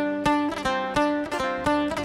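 Solo oud plucked in an unaccompanied instrumental opening. A few spaced, ringing notes give way about half a second in to a quicker run of notes.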